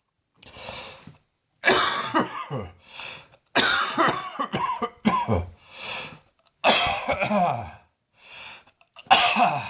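A person coughing hard in several harsh bouts, with quieter breaths between them: a persistent cough from lungs that keep protesting.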